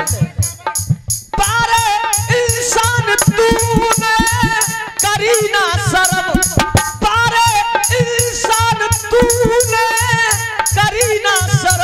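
Instrumental interlude of live Indian folk devotional music: a wavering lead melody over a steady drum beat.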